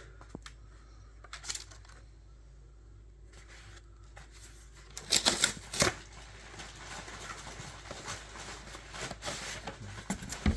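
Paper rustling and handling as magazines and pamphlets are lifted out of a shipping box, with a loud burst of rustling about five seconds in and softer rustling after it.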